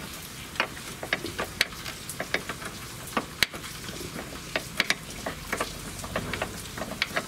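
Irregular light metallic clicks and ticks, a few a second, from hand tools and a bolt being worked into the fourth mounting hole of a car's rear subframe.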